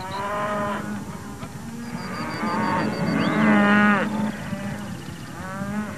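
Hereford cattle mooing: one call at the start, longer overlapping mooing from about two to four seconds in, and another call near the end.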